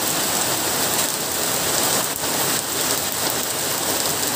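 Heavy rain falling steadily on a paved street, an even, dense hiss.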